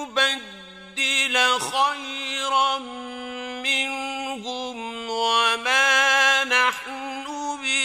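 A male Quran reciter chanting in the mujawwad style: long, ornamented melodic phrases, held notes that waver and bend in pitch. There is a short pause about a second in.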